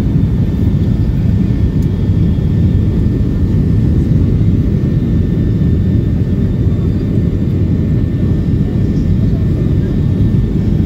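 Jet airliner cabin noise on the approach to landing: a steady low rumble of engines and airflow heard from inside the cabin, with a faint steady high whine.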